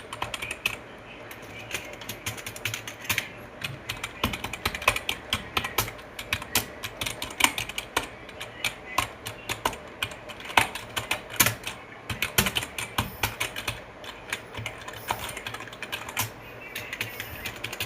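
Keys being typed rapidly on computer keyboards, among them a new EvoFox keyboard, as a sound comparison: a dense, irregular run of key clicks that thins out briefly near the end.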